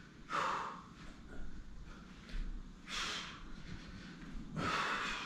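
A man breathing out hard with the effort of star crunches: three sharp, breathy exhalations about two seconds apart, with quieter breathing between them.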